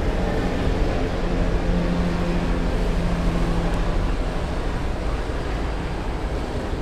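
Wind and water noise on the microphone, with a steady low motor hum through the first few seconds that fades after that.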